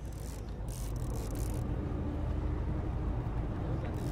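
Sportfishing boat's engines running with a steady low rumble, with wind and sea noise over it. A faint steady hum joins about a second and a half in.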